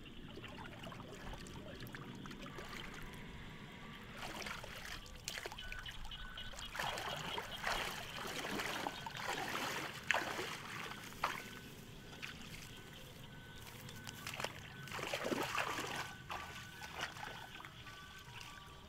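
Shallow water trickling and flowing through a flooded rice-field channel, with irregular bouts of splashing and sloshing as a person wades and handles a net in the muddy water, the busiest stretches in the middle and again about three quarters of the way through.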